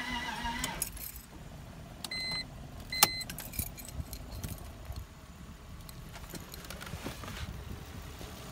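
2000 BMW 323ci's engine being cranked by the starter without catching, stopping about a second in: the crank-no-start fault. Then two short electronic beeps, the second with a sharp click, and keys jangling.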